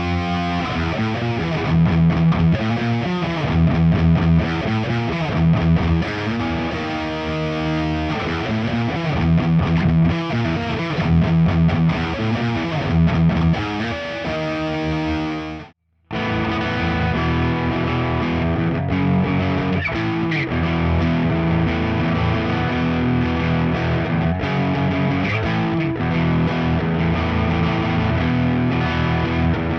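Distorted electric guitar riffing on a Nik Huber Krautster I with its Haussel pickup, played through a Diezel VH4 amplifier and a 4x12 cab with Celestion speakers. The sound cuts out for a moment about halfway through, then the playing resumes.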